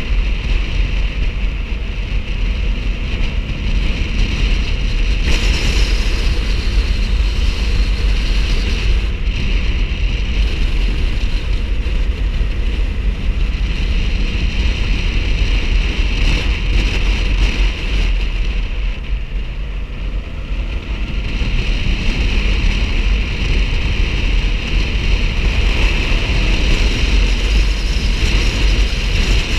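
Motorcycle being ridden, with wind buffeting the microphone over the running engine. It eases briefly about two-thirds of the way through.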